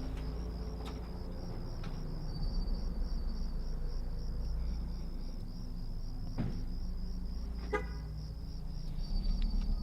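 Night ambience of crickets chirping in a steady pulsing trill over a low rumble of traffic, with a short car-horn toot near the end.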